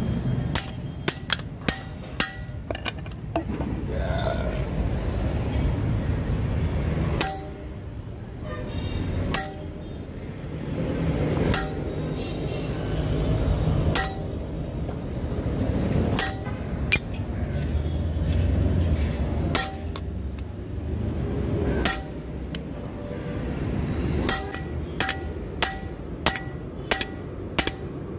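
Hand hammer striking hot leaf-spring steel on an anvil, each blow ringing. The blows come singly and in short groups at first, then as a quicker run of about two a second near the end, over a steady low rumble.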